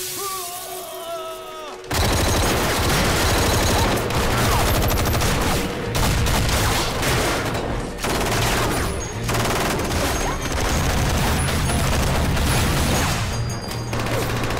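Dense, rapid automatic gunfire from film weapons. It starts abruptly about two seconds in after a quieter opening and keeps up, heavy and continuous.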